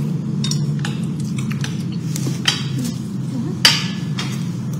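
Dishes clinking and aluminium foil food wrappers crackling as food is handled, in scattered sharp clicks, the loudest about three and a half seconds in, over a steady low hum.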